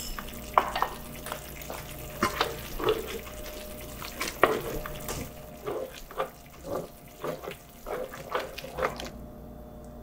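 Spatula stirring tomato and egg in a carbon steel wok, mixing in cornstarch water to thicken the sauce: irregular light knocks and scrapes against the pan, about two or three a second, over a soft sizzle. It stops about nine seconds in.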